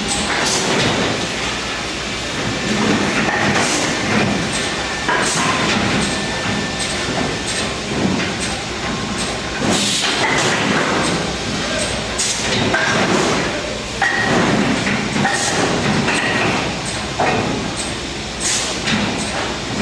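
MPCNC (Mostly Printed CNC) machine running a job, its stepper-motor whine changing pitch every second or so as the axes move, with frequent clicks and rattling over a steady mechanical noise.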